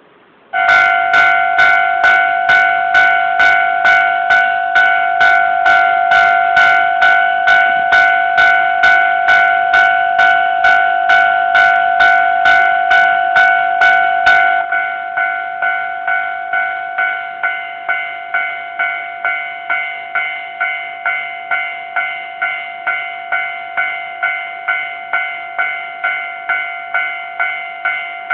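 Japanese railway level-crossing warning bell starting up and ringing its repeated electronic 'kan-kan' strokes, about two a second, the signal that a train is approaching. About halfway it turns a little quieter and duller.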